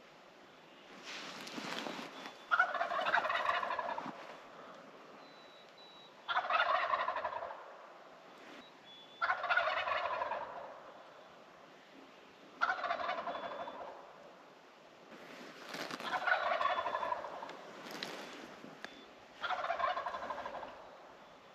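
Wild turkey toms gobbling over and over, about six loud gobbles roughly three seconds apart.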